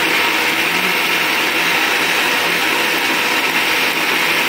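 Electric mixer-grinder (mixie) running at full speed with its stainless steel jar, grinding soaked rice into idli batter: a loud, steady whir.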